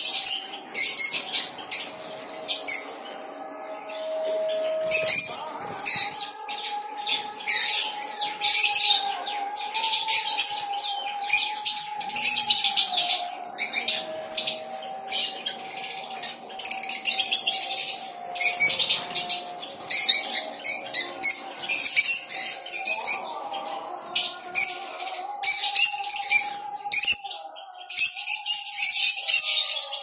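Caged lovebirds and other small parrots in an aviary chattering: a constant run of short, high-pitched chirps and squeaks, several a second, overlapping one another.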